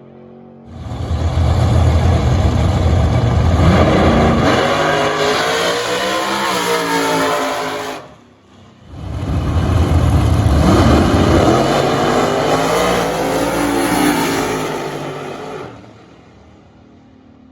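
Drag cars launching at full throttle down the strip, the engine note climbing as each pulls away and fades; two runs one after the other with a short break of about a second between them.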